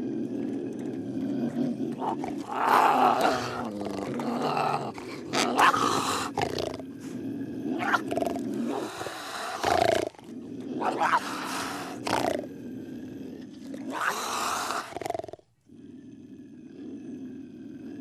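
Wild animal calls: a steady low rumbling call with loud, harsh cries breaking out over it every two to three seconds. About fifteen seconds in these stop, and a quieter, thinner call follows.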